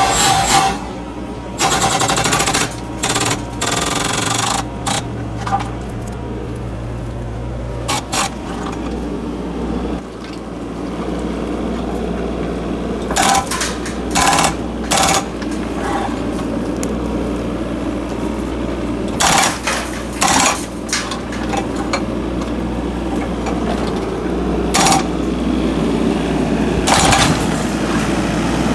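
Takeuchi TB 225 mini excavator's diesel engine running steadily, with its hydraulic breaker hammer firing into concrete in repeated bursts, some a second or more long, others brief.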